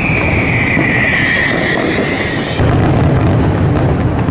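Aerial fireworks display: a steady rumble of shell bursts under a whistling tone that slowly falls in pitch, then, about two and a half seconds in, a louder salvo of sharp cracks and bangs.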